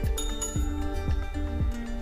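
Background music with a steady beat of about two drum hits a second. Just after the start there is a single light metallic clink, a spoon against a small steel bowl, that rings on briefly.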